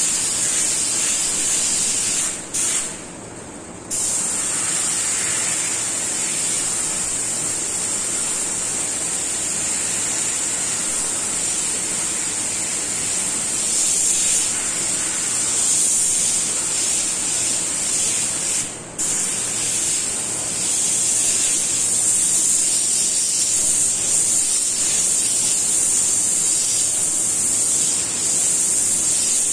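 Airbrush hissing steadily as it sprays paint, stopping for about a second a few seconds in and again very briefly a little past the middle as the trigger is let off.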